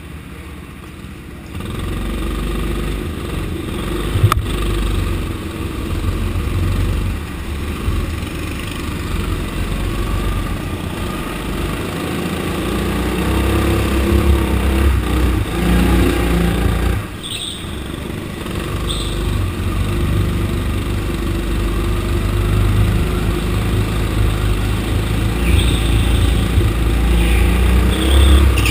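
Rental go-kart's engine heard from on board: running quietly at first, then pulling away about a second and a half in and running hard around the track, with a brief drop in engine noise about two-thirds of the way through before it picks up again.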